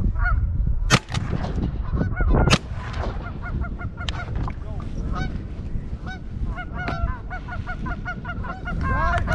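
Geese honking repeatedly as they fly past, with two loud shotgun shots about a second and a half apart near the start.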